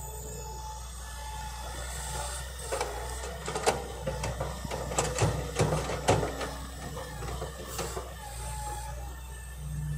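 Hitachi hydraulic excavator's engine running steadily while soil and clods pour from its bucket into a dump truck's bed, with a run of rattling knocks for several seconds in the middle as the load lands.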